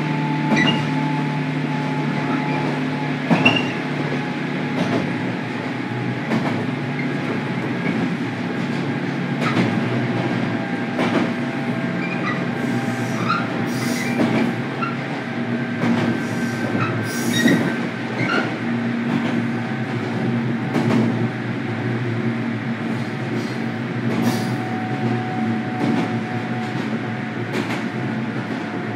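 Running sound of a 103 series 1500-subseries electric train, heard inside motor car KuMoHa 103-1514 while under way: a steady hum from the motors and gears, with frequent clicks of the wheels over rail joints. Short high wheel squeals come in the middle.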